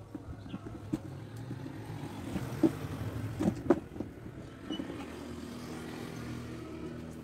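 A motor vehicle engine runs in the background as a steady low hum. Over it come a few sharp clicks and taps from hand-stitching a zipper onto a fabric suitcase with an awl, the loudest a little past the middle.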